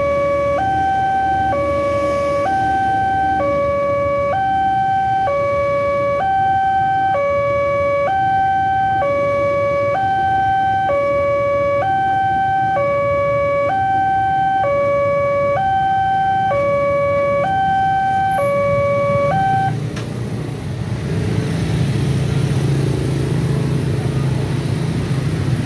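Railway level-crossing warning alarm repeating a two-note electronic tone while a freight train passes with a low rumble. About 19 seconds in the alarm stops, and the engines of waiting motorcycles and cars rise as the traffic moves off.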